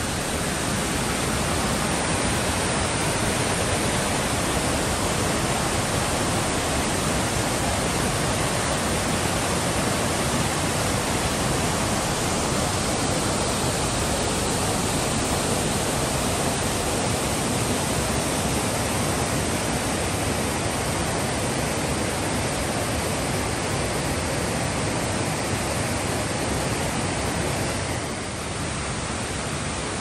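Cascades of a small rocky brook, white water tumbling over ledges close by: a steady, loud rush of water that dips briefly near the end.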